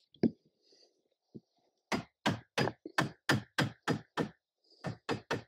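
Hammer blows driving birch bark canoe ribs into place with a block set against the rib. A single blow, then after a pause a steady run of about eight strikes, roughly three a second, and a few more near the end.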